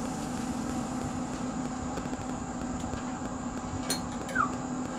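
Steady hum of a wood pellet grill's fan running, with a click and a short rising squeak near the end as the grill is handled.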